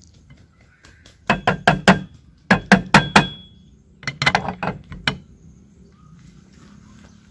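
Metal auger and blade of a hand-cranked meat grinder clinking and knocking as they are handled and set on a ceramic plate: three quick runs of sharp clinks, a few strikes each, some ringing briefly.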